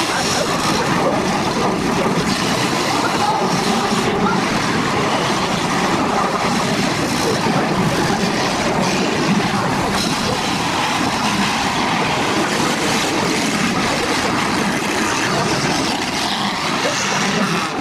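Demolition derby cars running with engines revving, a continuous loud mechanical din, mixed with wind buffeting the microphone.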